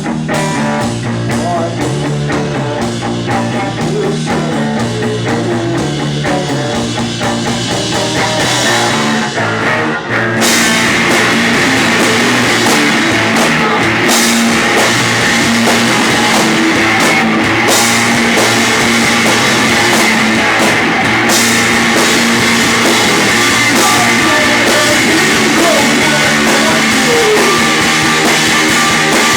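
Rock band playing live with guitar, bass and drums. It starts quieter and the whole band comes in louder, with cymbals, about ten seconds in.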